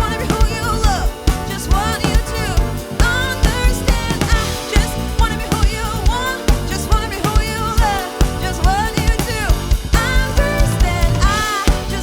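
Live funk-soul band playing: a steady drum-kit beat and bass guitar under keyboards, with a melodic lead line that slides up and down in pitch.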